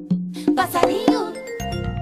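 A pair of conga drums struck by hand in a quick rhythm of sharp, ringing strokes. A brief wavering, gliding voice-like sound passes over them in the middle, and a deep bass tone comes in near the end.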